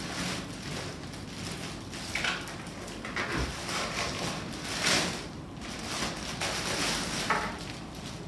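Clear plastic bag crinkling and rustling in irregular bursts as it is pulled off a pool-cleaning robot, loudest about five seconds in.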